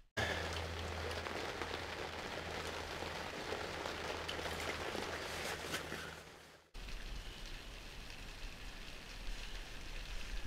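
Rain falling on the fabric roof of an ice-fishing hut, heard from inside, with a steady low hum under it. The sound cuts out for a moment about two-thirds of the way through, then carries on a little quieter.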